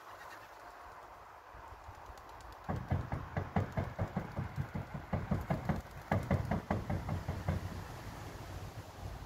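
A rapid run of short knocks, about four or five a second, starting about three seconds in and thinning out near the end, after a quieter stretch.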